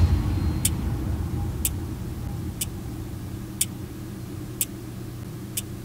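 Watch ticking once a second, six sharp ticks, over a low droning rumble that slowly fades.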